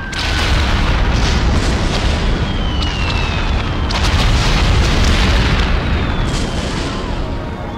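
A loud, steady rumbling rush, like wind buffeting the microphone, with a few faint whines that fall slowly in pitch.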